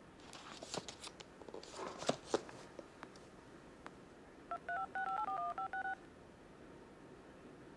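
A few soft clicks and rustles, then a quick run of about ten phone keypad touch-tones (DTMF beeps), each a short two-note tone: a phone number being dialed.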